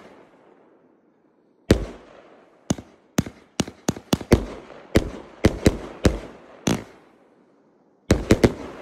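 A ground-launched fireworks battery (cake) firing its shells: a string of sharp, echoing bangs, about a dozen spread over some five seconds, then a short pause and a quick burst of three bangs near the end.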